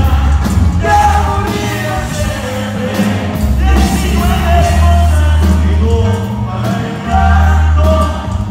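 Live band music with a singer, over a tuba bass line, guitars and drums. The low tuba notes change step by step under the vocal melody.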